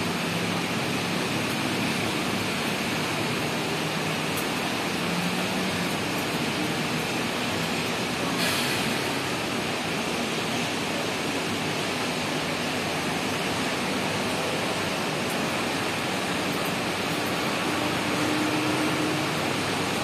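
Steady rain falling, an even hiss without a break, with a single short tap about eight and a half seconds in.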